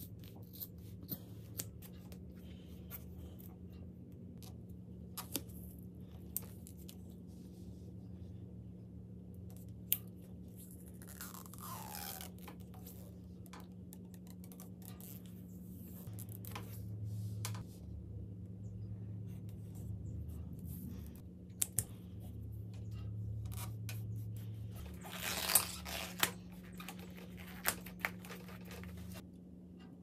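Hand work on a bicycle during assembly: scattered small clicks, scraping and snipping sounds over a steady low hum, with a short falling squeak about twelve seconds in and a louder rustle about twenty-five seconds in.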